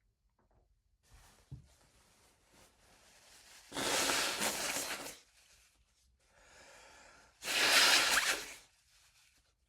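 A person blowing his nose hard twice, each blow lasting about a second, about four seconds apart, with quieter breathing before each. He is clearing a nose irritated by black pepper.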